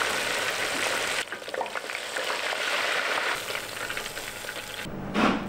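A battered cutlet deep-frying in a fryer basket of hot oil, bubbling and sizzling steadily. About five seconds in there is a brief louder knock.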